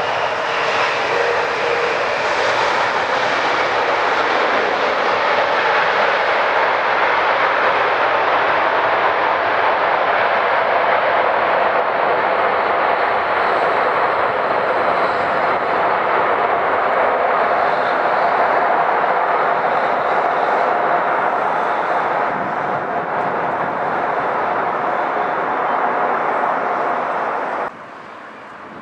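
Airbus A380's jet engines running, a loud steady roar with a faint whine. It cuts off suddenly near the end, leaving a much quieter background.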